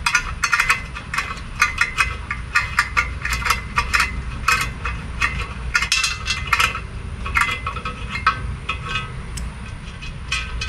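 A steel pick scraping and tapping inside a torch-washed bolt hole in a steel casting, working loose the slag at the bottom: quick, irregular metallic clicks and scratches with a short ring.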